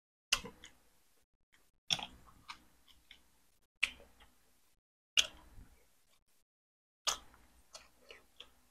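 A person chewing boiled chicken close to the microphone: five sharp wet mouth smacks spaced a second and a half to two seconds apart, each trailed by a few softer ones.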